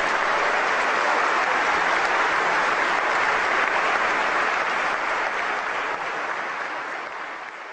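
A large audience clapping steadily, the applause easing off slightly near the end.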